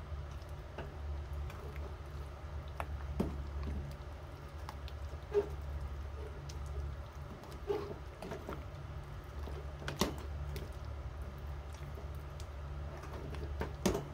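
A metal ladle stirring thick curry with chunks of potato in a metal pot: soft squelching of the stew, with a sharp knock of the ladle against the pot every few seconds, over a steady low hum.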